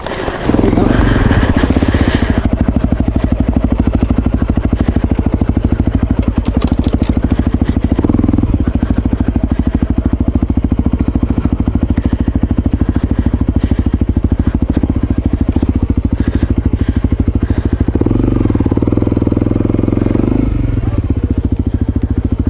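Single-cylinder 250cc dual-sport motorcycle engine running hard, with the revs rising in short bursts near the start, about eight seconds in, and again around eighteen to twenty seconds in, as the bike is worked past a stump on a trail.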